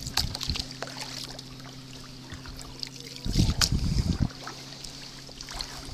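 Kayak paddle strokes on lake water: water dripping and trickling off the paddle blade, with a louder low knock and rumble a little past halfway. A steady low hum runs underneath.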